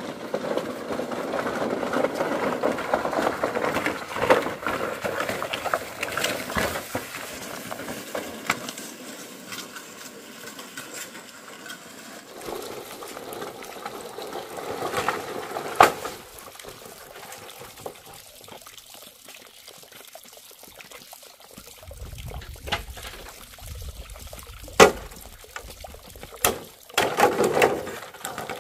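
Long green bamboo poles dragged along the ground, their trailing ends scraping and rustling over grass and a dirt path. Near the end they knock sharply and clatter as they are put down on concrete.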